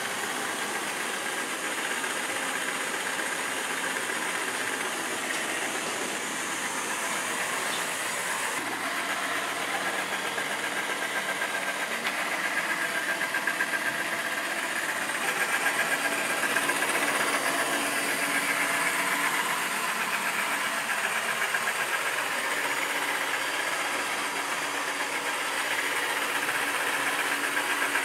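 Ecovacs Deebot Ozmo T8 AIVI robot vacuum running on a hard floor with its oscillating mop attachment scrubbing: a steady mechanical whir with a fast, fine vibrating buzz.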